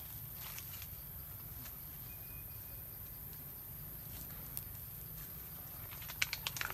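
Leafy branches rustling and crackling as a pig-tailed macaque handles and moves through them, with a quick run of sharp crackles near the end, over a steady high-pitched insect drone.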